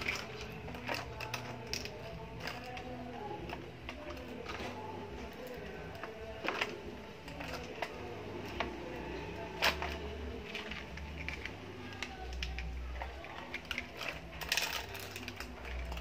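Plastic toy vehicles being handled: scattered clicks and knocks as the boom of a toy crane truck is raised and moved.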